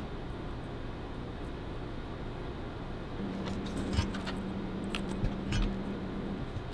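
Small sharp clicks and taps of bench soldering work on a circuit board's pins, over a steady low hum; a steady low drone sounds for about three seconds in the middle.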